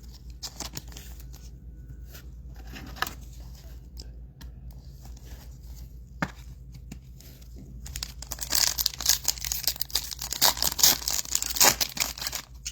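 A Topps Chrome football card pack wrapper being torn open and crinkled, a dense crackling stretch starting about eight seconds in, after some light handling clicks.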